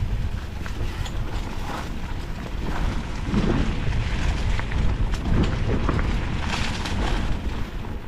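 Mountain bike riding fast down a singletrack, its tyres rolling over dry leaves and dirt, with a steady rumble of wind on the camera microphone. Louder bumps and rattles from the bike come through around the middle.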